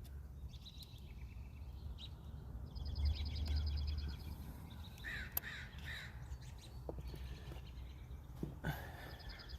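Birds calling outdoors: a rapid high trill repeats several times, and three short calls come in quick succession about five seconds in, over a steady low rumble.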